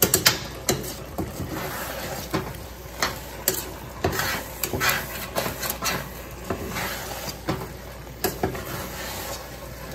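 A spoon stirring and mashing soft cooked butternut squash in a stainless steel pot, with irregular scrapes and knocks against the pot's sides. The squash is being worked from chunks into a mushy consistency.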